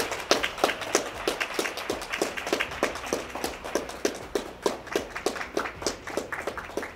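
A small group applauding, with the separate hand claps distinct and irregular. It thins out and stops near the end.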